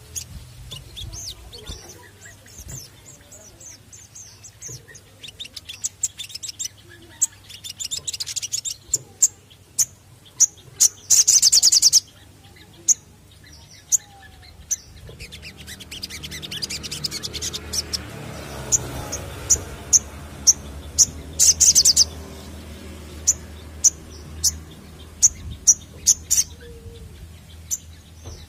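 Olive-backed sunbird (kolibri sogon) singing: a string of sharp, high chirps, broken by two fast buzzy trills of about a second each, one about 11 seconds in and one about 21 seconds in. A fainter low hum swells and fades in the middle.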